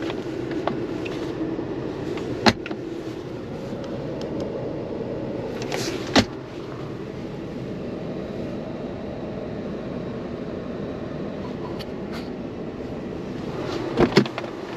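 Steady running noise inside a car's cabin, broken by a few sharp clicks and knocks, two of them close together near the end.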